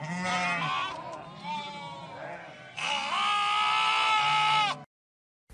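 Lamb bleating several times; the last bleat is long, steady and the loudest, and it cuts off suddenly.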